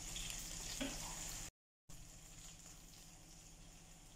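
Faint steady hiss, with a small knock a little under a second in. About a second and a half in it cuts out completely for a moment, then returns fainter.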